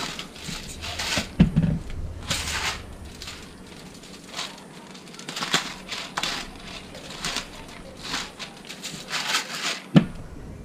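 Hand-twisted salt and pepper grinder cracking seasoning over a whole fish: a run of short gritty crunching strokes, with a sharp knock about a second and a half in and another near the end.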